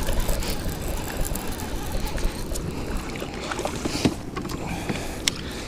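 Water sloshing around a kayak, with wind buffeting the microphone and a few sharp knocks, the clearest about four and five seconds in.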